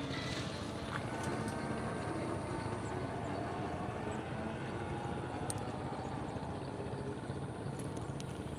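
Steady low rumble of outdoor road traffic, with a few faint ticks and no single event standing out.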